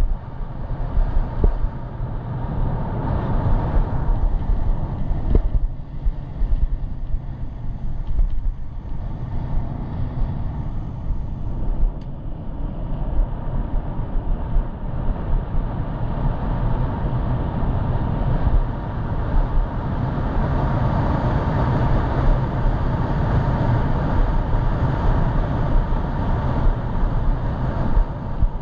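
Steady wind noise rushing over a head-mounted GoPro action camera's microphone while riding an e-bike, a constant low rumble with a thinner hiss above it.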